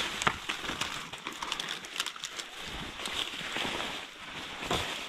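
Discarded fishing gear and rubbish being picked up and handled in a dumpster: rustling with scattered light clicks and knocks, and a sharper knock near the end.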